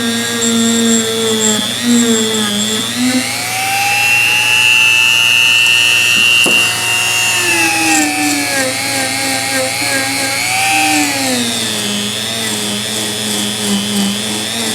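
Dremel rotary tool working rust off an adjustable wrench. Its motor whine sags as it bites into the metal and climbs when the load eases, running higher for a few seconds in the middle before dropping again.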